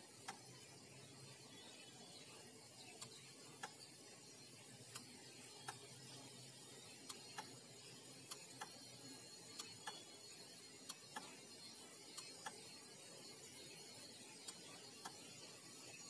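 Near silence with faint, irregular short clicks, some in quick pairs, over a faint low hum that fades out about halfway through.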